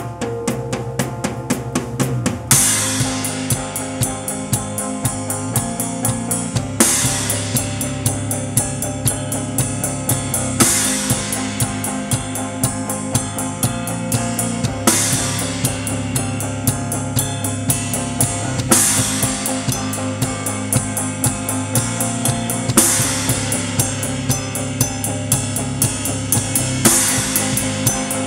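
Rock band playing live: a drum kit drives a fast kick-and-snare pattern with a crash cymbal accent about every four seconds, over sustained electric guitar. A quick run of strokes builds into the first big crash about two and a half seconds in.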